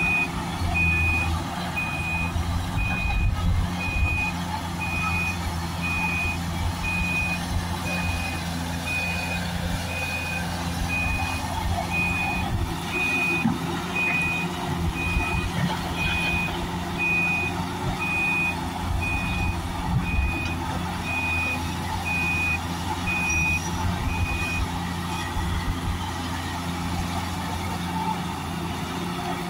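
Diesel engine of a Cat 345 GC excavator running steadily under load as it digs and loads a dump truck, with a backup alarm beeping about once a second that stops near the end.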